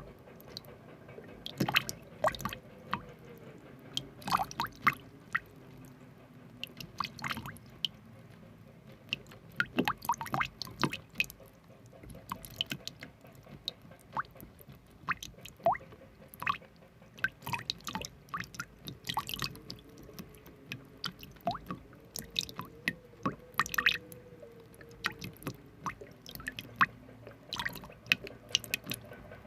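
Irregular wet clicks and squishes, short sharp sounds coming unevenly throughout, some louder than others, over a faint steady background.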